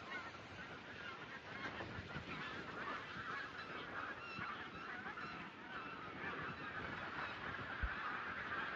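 A large flock of migrating geese honking continuously in flight, many calls overlapping into a dense chorus. A single low thump sounds near the end.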